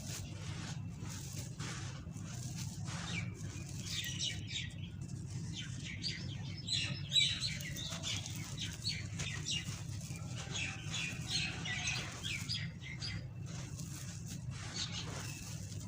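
Dry sand-cement shapes crumbling, a dense run of gritty crunching and crackling, with a louder crunch about seven seconds in. A steady low hum runs beneath.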